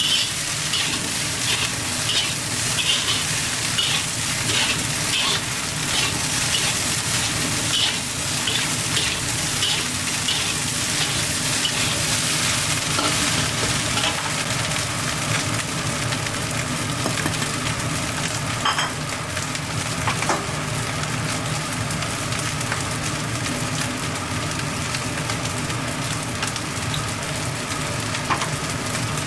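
Crab roe fried rice sizzling as it is stir-fried in a hot pan. A spatula scrapes and tosses about twice a second through the first half, then the rice carries on with a steady sizzle and only occasional scrapes.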